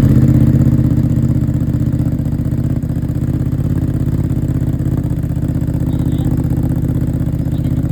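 750cc motorcycle engine breathing through a Yoshimura aftermarket exhaust, idling steadily just after starting. It is a little louder in the first second or two before settling.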